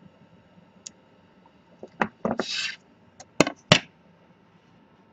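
Metal drawing compass and metal ruler handled on a paper-covered desk: a few sharp clicks and taps, with a short sliding scrape about two and a half seconds in, and the two loudest clicks near the end.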